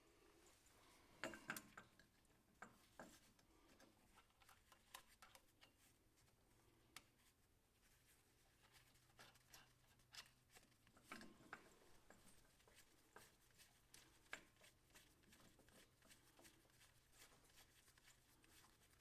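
Faint scattered clicks and light taps of pliers and small hydraulic coupler parts being handled, with a few louder knocks about a second and a half in and again near the middle.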